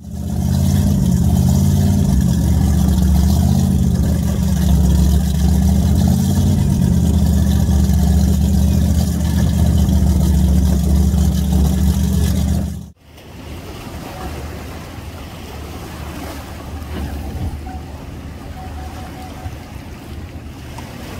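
An engine idling with a loud, steady, deep rumble that wavers slightly in pitch, cut off suddenly about 13 seconds in; quieter open-air background noise follows.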